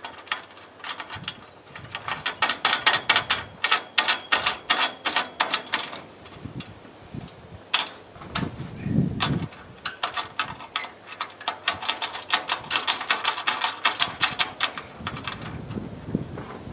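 Ratchet wrench clicking rapidly in runs as bolts on the racking rails are tightened, with pauses between the runs.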